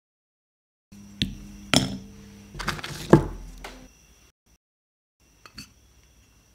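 A few light knocks and scrapes of a knife and Oreo biscuits against a glass plate and a plastic blender jar, as the cream is scraped off and the biscuits go into the jar. The loudest knock comes about three seconds in, with silent gaps at the start and after four seconds.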